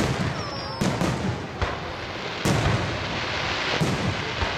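Aerial firework shells (ball shells) bursting in the sky, a string of loud bangs, about half a dozen in under five seconds.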